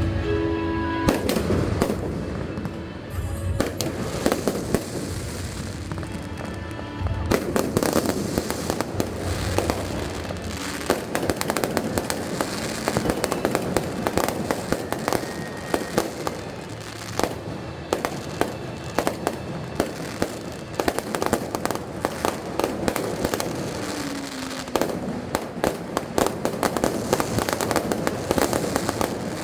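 Fireworks show: aerial shells bursting in rapid, overlapping volleys, getting denser about seven seconds in, with music playing along.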